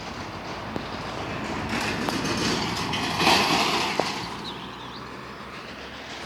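A vehicle passing by: a broad noise that swells to a peak about three seconds in, then fades away.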